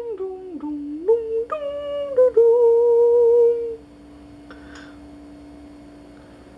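A woman humming a short tune: the pitch slides down and back up, steps higher, then holds one note until it stops a little past halfway. A faint steady hum runs underneath.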